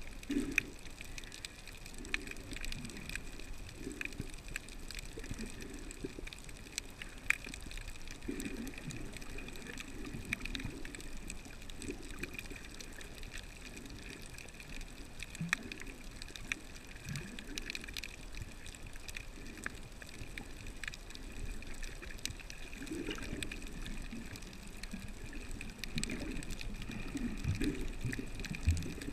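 Underwater reef ambience heard through an underwater camera: water moving against the housing in irregular low swells, with many small scattered clicks throughout.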